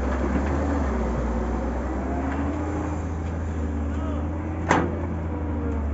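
Samsung wheeled excavator's diesel engine running with a steady low drone and a wavering hydraulic whine as the boom swings and the bucket works the soil. One sharp clank near the end, as the bucket strikes the ground.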